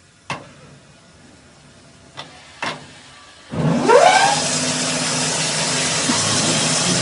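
A few sharp clicks, then about halfway through an engine catches, revs up with a rising pitch and keeps running loudly and steadily.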